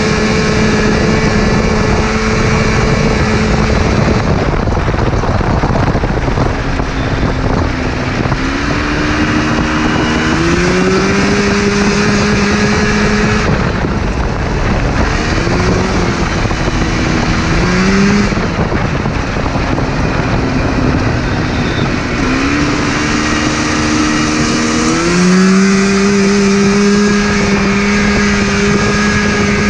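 Engine-swapped go-kart's Yamaha Phazer two-stroke twin snowmobile engine pulling hard down the road, its note holding steady for stretches. It drops away about four seconds in and again a little before halfway, then climbs back up in steps and holds high near the end. Throughout there is a loud rush of wind and road noise.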